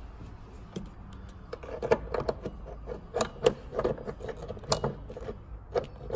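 Irregular light metallic clicks, taps and knocks of a car part being handled and pushed into place by hand at the firewall of the engine bay, beginning about a second in.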